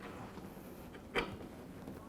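Faint handling noise of dishwasher door parts being worked on, with one sharp knock about a second in.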